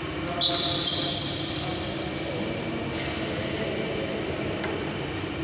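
Sports shoes squeaking on a wooden hall floor as players walk and shift their feet: a high-pitched squeak about half a second in lasting nearly a second, and a shorter one a little after three and a half seconds. A steady background hum runs underneath.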